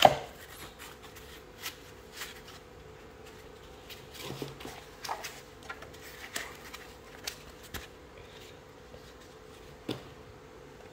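Handling noise as foam packaging end caps are pulled off a solar charge controller and the unit is turned over on a table: scattered light clicks and rubbing, with a sharp knock right at the start and another near the end.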